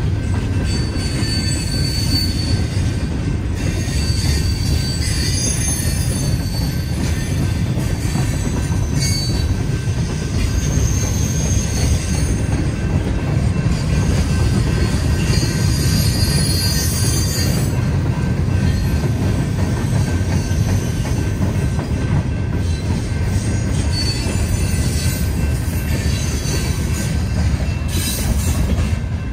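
Freight cars rolling past at close range: a steady heavy rumble of steel wheels on rail, with short high-pitched squeals coming and going.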